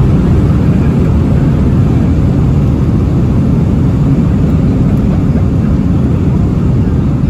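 Loud, steady low roar and rumble inside the cabin of a Boeing 757-200 on its landing run, from its Pratt & Whitney PW2000 engines and the wheels on the runway, easing slightly near the end.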